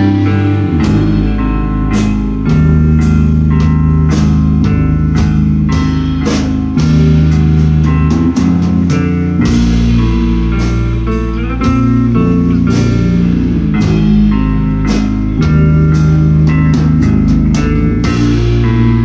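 Live band playing an instrumental passage: electric guitar chords over a sustained, slowly shifting bass line, with drum kit hits throughout.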